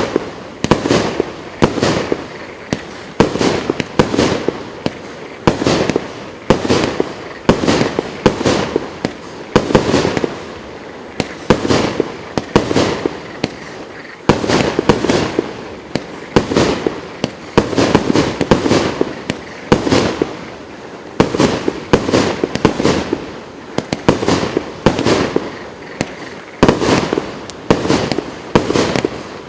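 COLOURED WORLD GWM6121 firework battery (cake) firing shot after shot in a steady run, a little more than one a second, each a sharp report with a short decaying tail.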